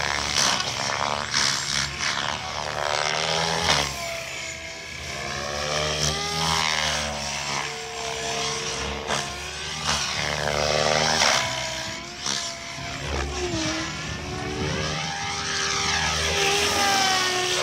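SAB Goblin 700 electric radio-controlled helicopter flying aerobatics. Its rotor and motor whine rises and falls in pitch again and again as it swoops and passes.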